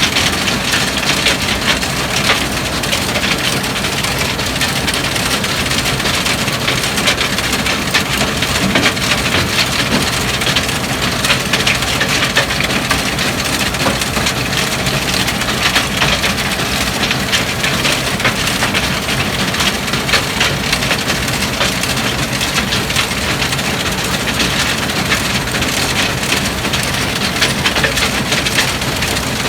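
Tractor-drawn stone picker at work: a dense, steady crackling clatter of stones rattling through the machine, over the Hattat tractor's engine running.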